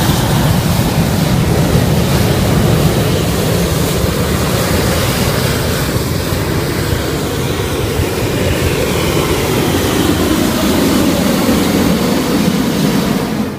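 Hot air balloon's propane burner firing a long, steady blast into the envelope during hot inflation.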